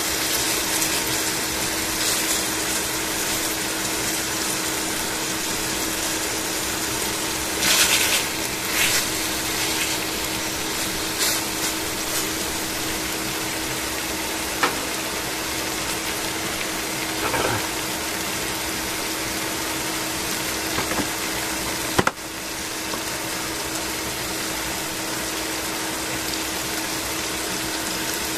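Chicken pieces frying in oil in a stainless steel pan: a steady sizzle throughout, with a few short clinks and knocks, the sharpest a little over 22 seconds in.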